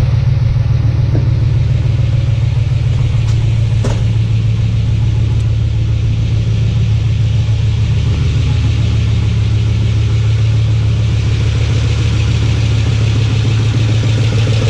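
Freshly rebuilt Ford 5.4-litre three-valve V8 idling steadily on its first run, with an exhaust leak that the owner hears as a tick. A couple of light clicks sound about four seconds in.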